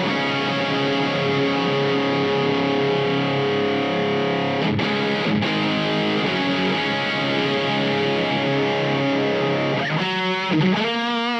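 Electric guitar played through the LPD Seventy4 amp-in-a-box drive pedal with the gain cranked: distorted chords ringing out, then single notes with vibrato near the end.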